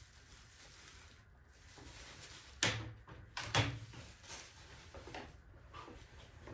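Unboxing handling noise: rustling, then two sharp knocks about a second apart, like a hard case or box lid being handled and set down, followed by smaller clatters.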